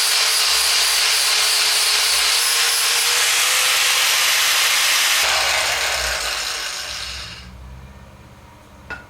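Electric power tool running under load with a steady whine, then switched off about five seconds in and winding down to a stop.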